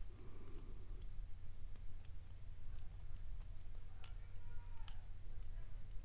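Lock pick and tension wrench working the pins of a brass Sesamee padlock: faint scattered ticks and scrapes of metal on metal, with two sharper clicks about four and five seconds in.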